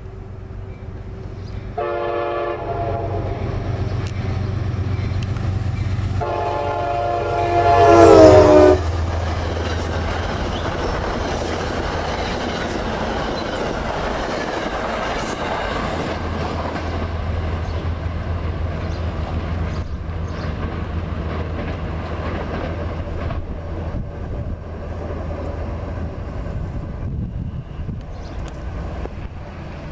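Metro-North GE P32AC-DM diesel locomotive sounding its air horn as it approaches: a short blast, then a louder long blast whose pitch drops as it passes. The train then rumbles by with the engine's low drone and wheels clacking on the rails, fading near the end.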